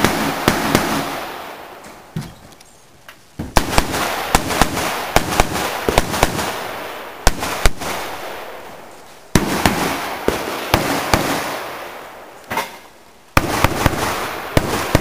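Strings of rapid AR-15 rifle shots, several a second, each string trailing off in echo. The firing breaks off and starts again abruptly three times.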